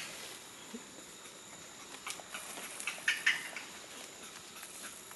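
Footsteps rustling and crackling in dry leaf litter on a forest floor: scattered short crunches, with a louder cluster about three seconds in.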